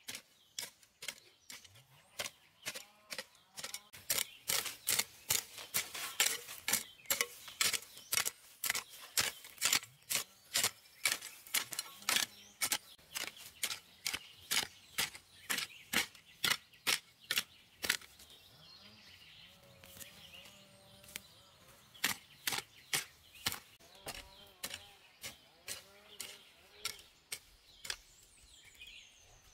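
Hand hoe blade chopping into garden soil over and over, about two to three strikes a second. The strikes stop for a few seconds about two-thirds of the way through, then come back more sparsely.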